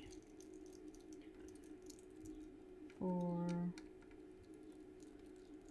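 Small scattered clicks and ticks of a screwdriver working screws out of the sheet-metal bracket on a Bose 3-disc CD changer's drive mechanism. About three seconds in comes a short hummed 'mmm' from a voice.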